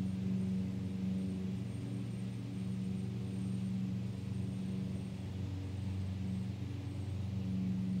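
Lawn mower engine running steadily in the distance, a low droning hum. The hum dips a little around five seconds in and swells again near the end.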